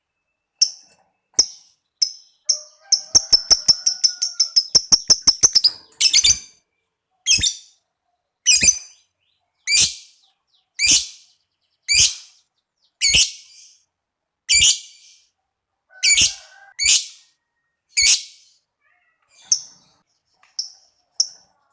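Lovebird calling: a few short shrill chirps, then a fast chattering trill of about three seconds, then single sharp chirps repeated about once a second that grow fainter near the end.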